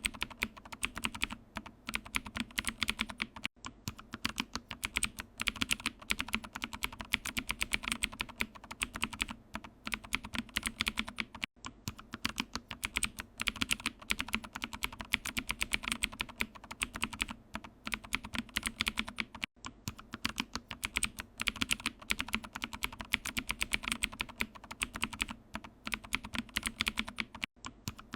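Computer keyboard being typed on rapidly: a dense, steady stream of key clicks, with a short pause about every eight seconds.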